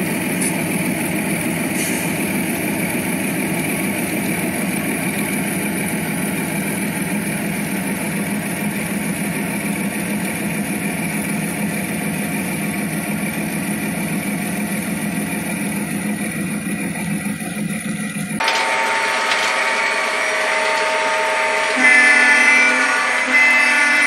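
Steady diesel-engine drone and rolling rumble of a model train as Burlington Northern diesel locomotives haul a string of coal hoppers past. About eighteen seconds in, the sound switches abruptly to a louder, different sound with several steady tones.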